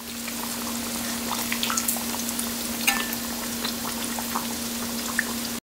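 Pork belly chunks frying in hot oil in a cast-iron wok: a steady sizzle with many scattered, irregular pops and crackles, over a steady low hum.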